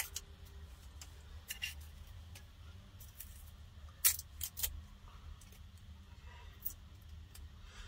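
Scattered light clicks and taps of a kitchen knife working an onion in the hand, peeling and trimming its papery skin, with a sharper tap about four seconds in. A steady low hum lies underneath.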